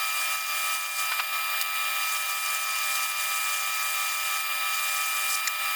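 Metal lathe taking a cut in 304 stainless steel with a narrow 3/32-inch tool: a steady cutting hiss with a high, steady tone over it.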